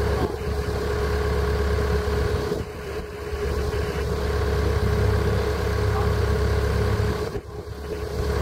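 An engine running steadily with a constant hum over a low rumble, easing off briefly about a third of the way in and again near the end.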